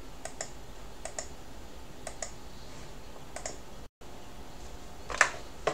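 Computer mouse button clicks, each a quick press-and-release pair, coming about once a second, with two louder clicks near the end.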